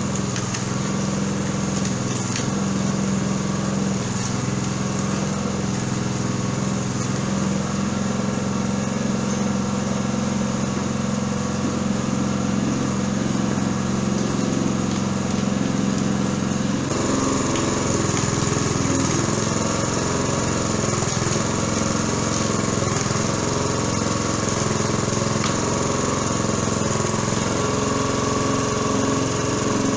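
Small single-cylinder petrol engine running steadily, driving a coconut husk-peeling machine. The engine note changes abruptly about halfway through.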